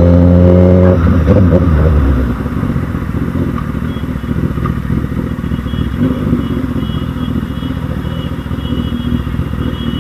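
Suzuki GSX-S1000's inline-four engine running loud at a steady pitch, then dropping to a quieter, rougher running sound about a second in as the motorcycle rolls along.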